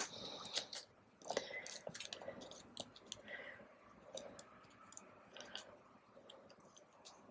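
Plastic card sleeves crinkling and rustling in the fingers as photocards are slid into them, with a scatter of faint, irregular small clicks.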